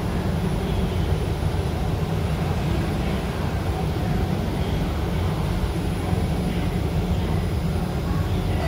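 Steady low hum inside a KHI C151 train carriage standing at a station with its doors open.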